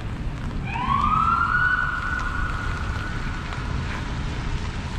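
A siren that starts about a second in, rising in pitch, then holds one steady tone for about three seconds before dying away. It sounds over a steady low rumble of street noise.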